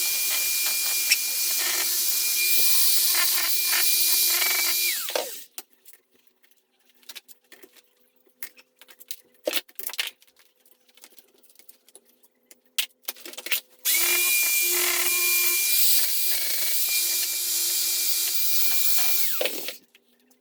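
Electric stone-cutting saw running at speed as it cuts into stone, with a steady high whine, for about five seconds, then winding down. Scattered knocks and clicks follow, and the saw runs again for about five more seconds near the end before it winds down again.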